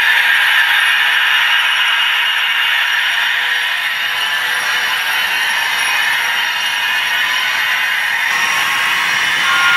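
N-scale model train running close by: a steady whirring rattle from the diesel locomotive and its passenger coaches rolling over the track. It thins out near the end as the train moves away.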